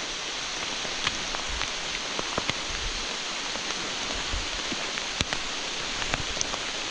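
Steady hiss of rain falling, with scattered light taps and drips.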